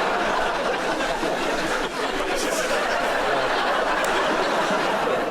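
Studio audience laughing, a steady crowd roar of laughter that holds without a break.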